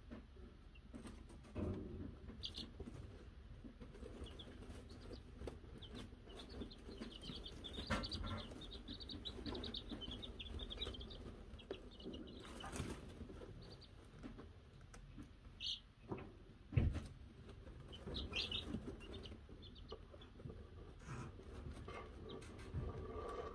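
Wyandotte chicks peeping in short high chirps, thickest in a run through the middle, over a low rustle in wood shavings, with a few sharp knocks, the loudest well past halfway.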